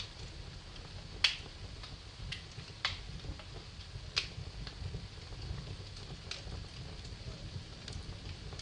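Wood fire burning in a fireplace: a steady low rumble of flames with sharp, scattered crackles and pops, the loudest about a second in.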